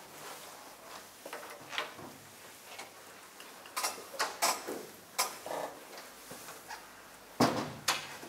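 Chalk on a blackboard: irregular sharp taps and short scratches as a line of writing goes up, with a cluster of clicks around the middle and the loudest strike near the end.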